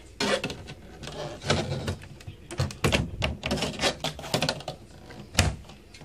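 A plastic hose being handled against a portable washing machine's plastic tub and top: irregular rubbing, clicks and knocks, with one sharp knock near the end.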